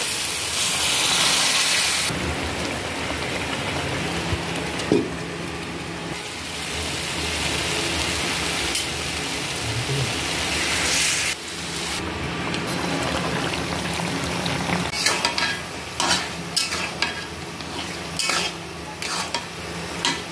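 Spiced masala sizzling as it fries in a metal kadai while a spatula stirs it. In the last few seconds there is a run of sharp clicks and taps from the spatula against the pan.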